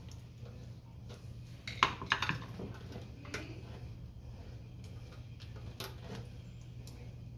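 Metal hand tools and motorcycle parts clinking and knocking, with a quick cluster of sharp clanks about two seconds in and a few single clicks after, over a steady low hum.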